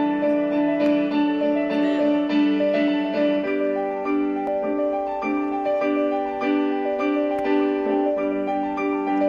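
Piano-style keyboard music, a melody of sustained notes changing several times a second, playing from a Sabala DR-104 portable Bluetooth speaker.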